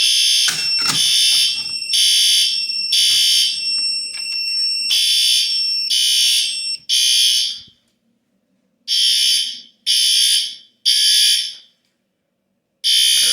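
System Sensor L-Series fire alarm horns sounding in the temporal-three evacuation pattern: three blasts about a second apart, then a pause, repeating. For the first seven seconds a steady high tone runs along with the blasts, then stops.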